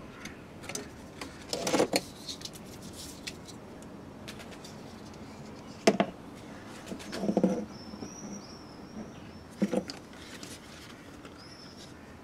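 Knocks and clatter from handling the hard plastic radiator fan shroud and fan, in a few short bursts, the sharpest about six seconds in. A bird chirps in the background in the second half.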